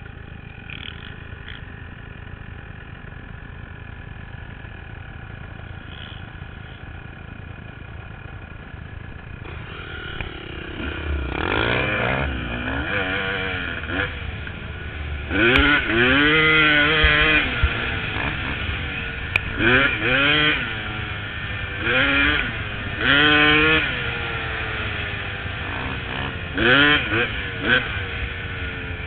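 2002 Honda CR250 two-stroke single with an aftermarket expansion-chamber pipe and silencer. It runs steadily at low throttle for the first third, then revs hard in about half a dozen rising and falling bursts. A low rumble of wind on the helmet-mounted microphone runs under it.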